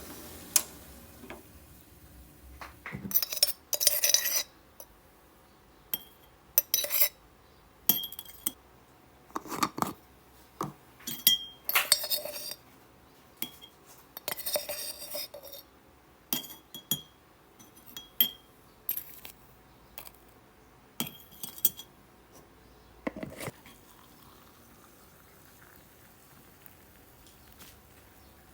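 Dishes and utensils being handled: a string of separate clinks and clatters, some of them ringing briefly.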